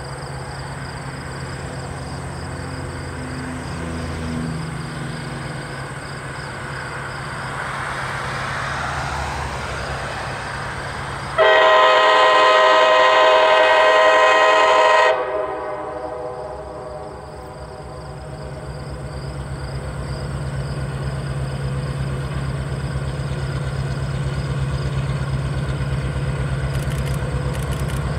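Diesel locomotive engine running steadily; about eleven seconds in, its air horn sounds one long blast of several tones for about three and a half seconds, starting and cutting off abruptly, the loudest sound here. Afterwards the engine grows gradually louder.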